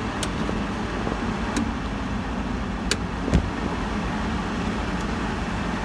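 Air conditioner running: a steady rush of air with a low hum, a few faint clicks and a soft thump a little past halfway.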